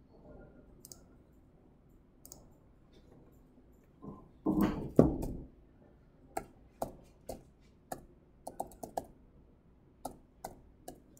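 Computer keyboard being typed key by key: separate sharp clicks, two or three a second, through the second half. A few louder knocks come just before the typing begins, and there are a couple of faint clicks earlier.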